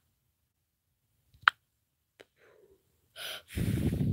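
A sharp click about one and a half seconds in, then a short puff and a longer breath blown straight onto the phone's microphone, rumbling with wind noise near the end.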